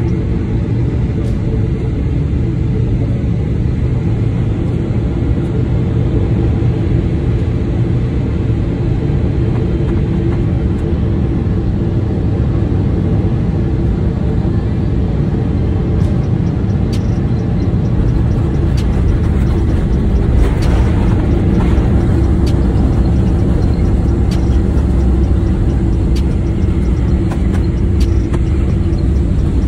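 Airliner cabin noise during landing: a steady, loud low rumble of engines and airflow through the final approach and the roll along the runway, growing a little louder in the second half.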